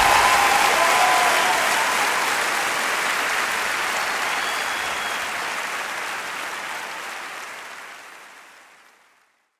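Concert audience applauding, with the last notes of the music dying away in the first second; the applause fades out slowly until it stops near the end.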